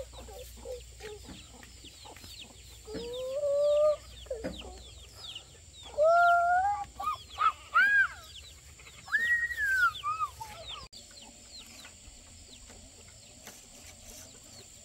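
Chickens calling: a handful of drawn-out calls that rise and fall in pitch, the loudest bunched in the middle, stopping abruptly about two-thirds of the way through. Faint high chirps of small birds run underneath.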